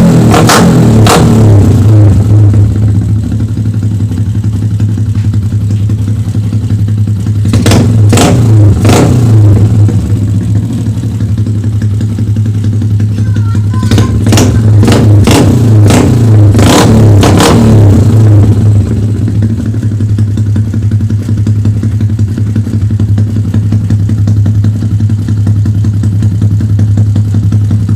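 Yamaha Sniper 135's single-cylinder four-stroke engine, breathing through a LeoVince open exhaust pipe, running at idle with quick throttle blips. The blips come in bursts at the start, about eight seconds in and again about fourteen to eighteen seconds in, each revving up and dropping back to idle. The engine then idles steadily for the last ten seconds.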